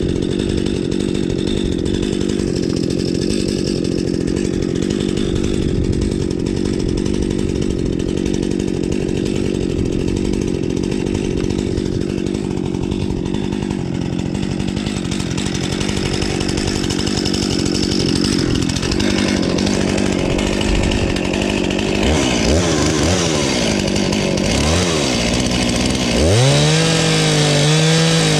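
Two-stroke chainsaw running under load, ripping a log lengthwise by hand to mill it into lumber. For most of the time the engine note holds steady in the cut; in the last few seconds its pitch rises and falls repeatedly as the saw revs up and bogs down.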